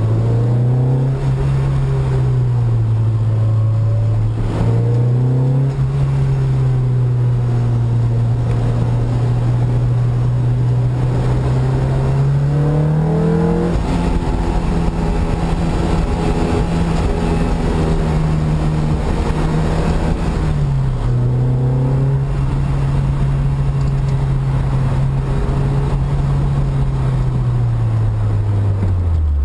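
Sports car engine running under load, heard from inside the cabin, its pitch holding steady for long stretches with a faint rushing haze over it. The note climbs sharply to a peak about 13 seconds in and drops suddenly, steps down again about 21 seconds in, and falls away near the end: the engine revving up and easing off with the throttle and gear changes.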